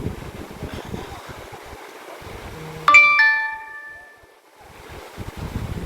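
A two-note 'ding-dong' chime sounds about three seconds in, the notes close together and ringing out over about a second, over wind noise on the microphone.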